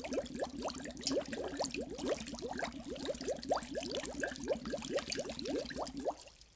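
Water bubbling in a quick stream, each bubble a short upward-gliding blip, several a second, dying away near the end.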